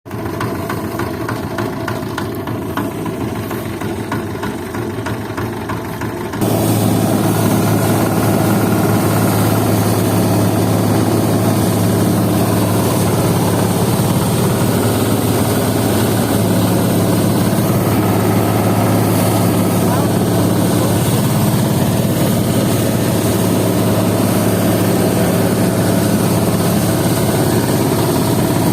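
Engine-driven power rice thresher running continuously with a steady mechanical drone. About six seconds in, the sound abruptly becomes louder and fuller.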